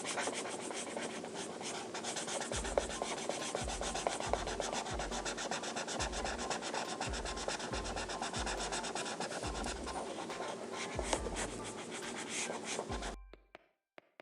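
A colouring tool rubbing back and forth on paper in fast, scratchy strokes, filling in a large area with black. It stops abruptly about 13 seconds in.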